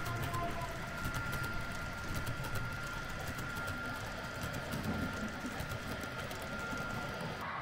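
HO-scale model train running along the layout track: a small electric motor's steady whine with light wheel clicking and rumble. The whine cuts off abruptly near the end.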